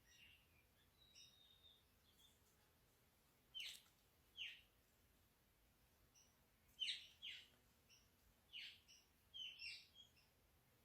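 Birds chirping: short, sharp calls that drop quickly in pitch, coming singly and in close pairs with gaps between, over a faint steady background hiss.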